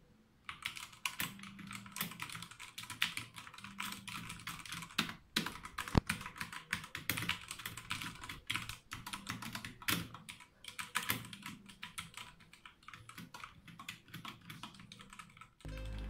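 Redragon K630 60% mechanical keyboard with Brown switches being typed on fast: a dense run of key clacks that starts about half a second in and stops just before the end.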